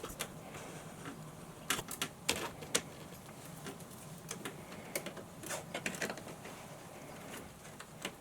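Irregular clicks and light rattles of electrical cable being handled and fed into the bottom of a junction box, in small clusters about two seconds in and again around five to six seconds.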